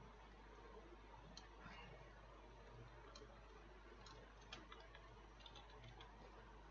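Near silence with a low steady hum and a few faint, irregular clicks of computer keyboard keys being pressed one at a time.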